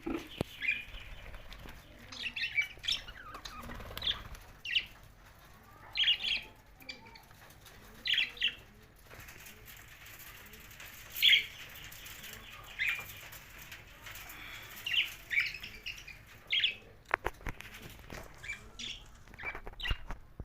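Budgerigars chirping in short, repeated calls about once a second, with a few sharp clicks near the end.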